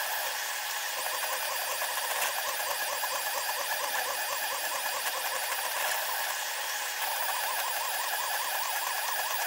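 SeeMeCNC Orion delta 3D printer's stepper motors running while printing, sped up about tenfold into a high, rapidly warbling whine over a steady hiss.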